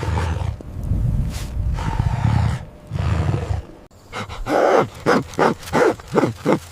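Animal calls: deep, low rumbling booms for the first few seconds, then, about four seconds in, a quick run of about seven short calls, a little under half a second apart.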